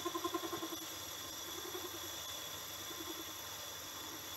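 Metal lathe running while a grooving tool cuts a groove into a spinning bar-stock eccentric. The cut gives a pulsing squeal, loudest in the first second and returning more faintly twice, over the lathe's steady running.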